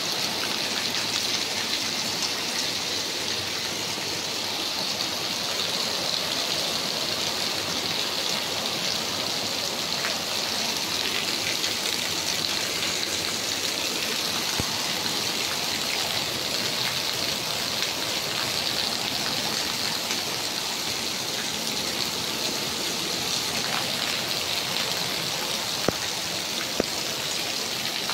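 Heavy rain falling steadily, with runoff water pouring off a roof edge and splashing onto the wet ground. Two brief sharp clicks near the end.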